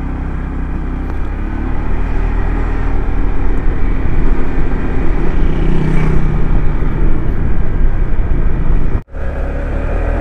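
Motorcycle engine running steadily while riding, with wind and road noise on the rider's microphone. The sound cuts out for an instant about nine seconds in.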